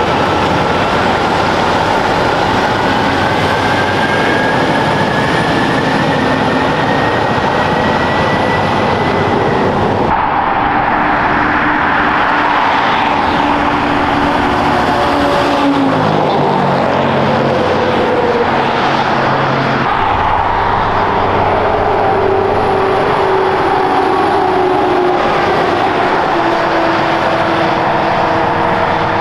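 Heavy trucks with trailers passing at road speed: diesel engine drone and tyre roar. A tone rises slowly over the first ten seconds, and the sound changes abruptly about ten and sixteen seconds in as one passing truck gives way to another.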